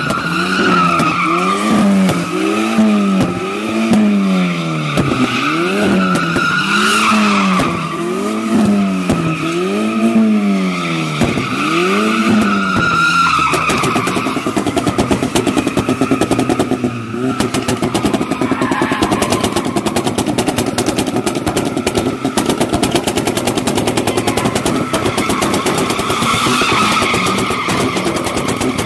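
BMW E36 drifting on concrete, its tyres squealing steadily while the engine revs rise and fall about once a second. About halfway through, the engine note turns into a rapid, rattling stutter of pulses, still over the tyre squeal.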